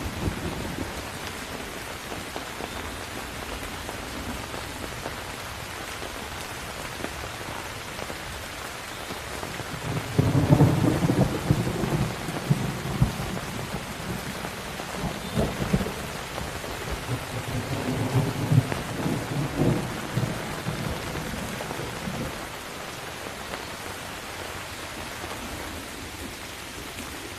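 Steady rain with a long roll of thunder that starts about ten seconds in. The thunder rumbles for about ten seconds with several louder peaks, then fades back under the rain.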